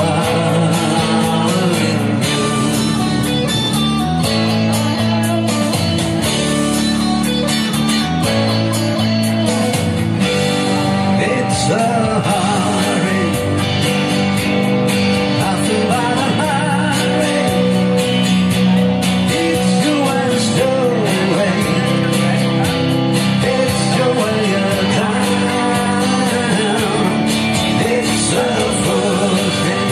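Live amplified rock-country music from a duo: an electric guitar and an acoustic guitar strummed together under a man's singing voice.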